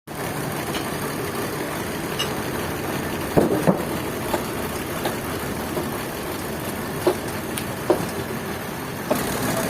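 Sawmill machinery running steadily, with a few sharp knocks and clanks, the loudest about a third of the way in.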